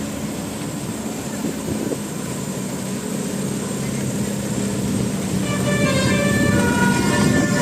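A bus engine's low steady drone, then from about five and a half seconds in a Basuri 'telolet' musical bus horn starts playing a melody of short held notes, getting louder.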